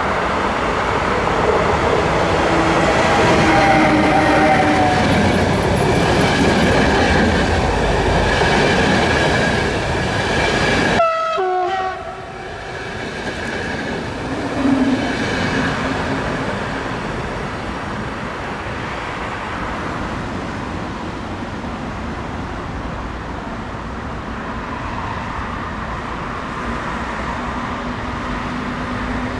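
Trains running through a railway station: a loud, close pass with rail noise and some pitched tones, then, after an abrupt cut about eleven seconds in, a quieter steady rumble of a train on the track.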